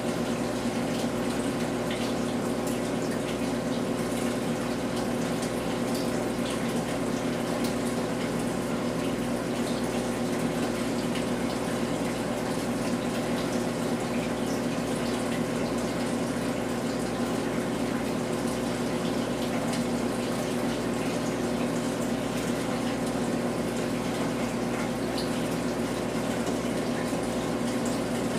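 Reef aquarium's pumps and water circulation: steady running water over a constant low hum.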